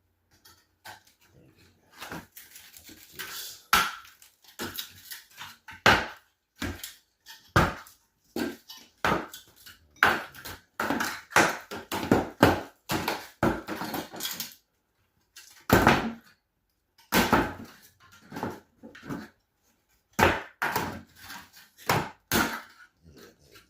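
Irregular run of scraping, crunching and knocking strokes from hand tools working on drywall, some strokes short and sharp, others drawn out over a fraction of a second.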